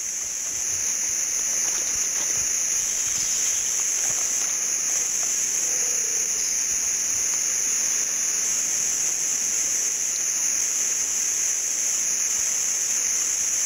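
Forest insect chorus: a steady, high-pitched buzzing drone with a fainter hiss beneath it.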